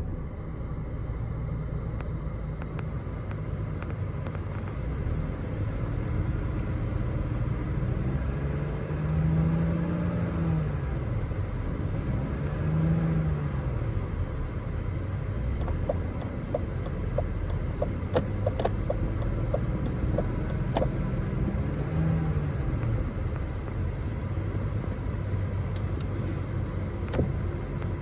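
A 2000 BMW 528i's 2.8-litre inline-six idling just after a cold start, with the coolant still cold. Its engine speed rises and falls a few times. A run of light clicks comes in the middle.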